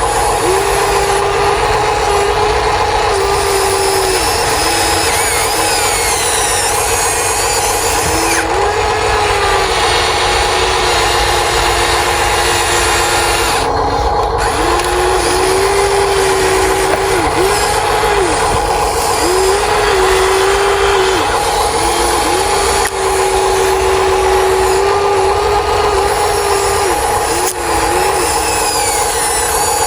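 Small electric motors of radio-controlled construction models whining, starting and stopping in runs of a second or more, their pitch gliding up and down as the controls are worked, over a steady high hum.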